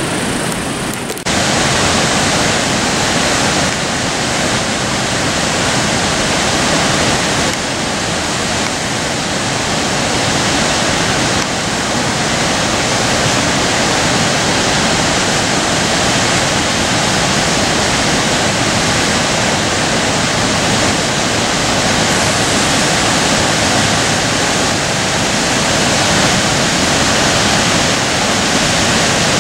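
Loud, steady rush of the Chutes Ste-Ursule waterfall on the Maskinongé River, whitewater pouring over rocks.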